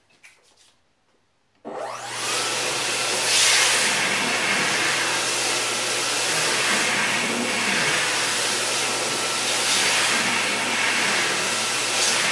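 Dyson Airblade AB04 high-speed hand dryer switching on suddenly about two seconds in and blowing air loudly and steadily: a high rush of air over a steady low motor hum, swelling a few times as hands move through the air blades.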